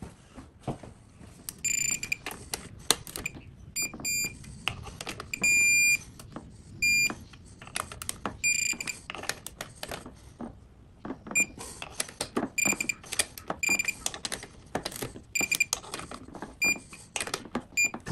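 Digital torque wrench beeping repeatedly as it tightens the clutch pressure-plate bolts towards its 7.2 ft-lb setting: bursts of short high beeps, one held for about half a second, with the wrench's ratchet and the bolts clicking in between.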